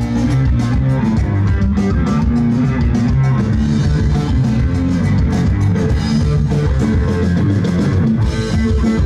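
Loud rock music with electric guitar and a drum kit, playing steadily.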